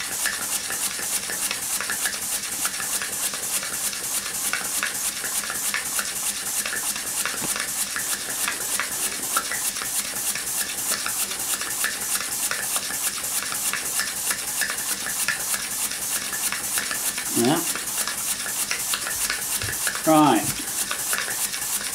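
Homemade single-cylinder model steam engine running on live steam: a steady, rapid, even beat of hissing exhaust puffs.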